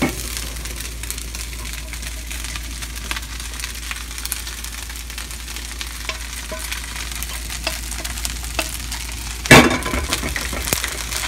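Rice and nut stuffing sizzling in a black wok-style pan over a gas flame, stirred with a wooden spoon, with a run of small scrapes and ticks. One louder, brief knock comes near the end.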